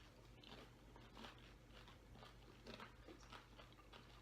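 Faint, irregular crunching and chewing: people biting into and eating pani puri, the crisp hollow fried shells breaking in the mouth.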